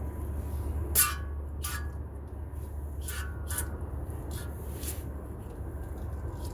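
Degreaser sprayed in about six short spurts onto the brake hub, each a brief hiss, over a steady low background hum.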